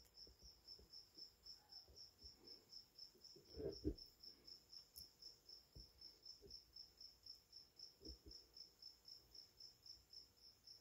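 Near silence, with a cricket chirping faintly and evenly at about four chirps a second. A soft thump comes about four seconds in.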